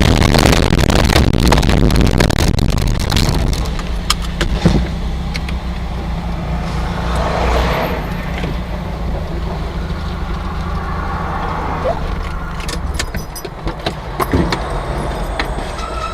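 Car noise picked up by a dashcam: a loud rumbling and rattling for about the first three seconds, then sharp knocks and clatter, settling into a quieter steady low engine hum with scattered clicks. A steady high tone starts near the end.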